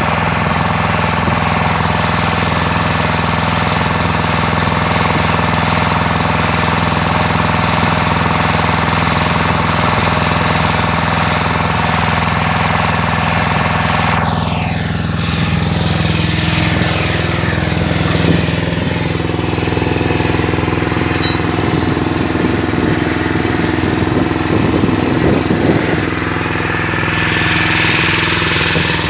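An engine running steadily. About halfway through, its tones slide down in pitch, and rapid crackling rattles over it for several seconds.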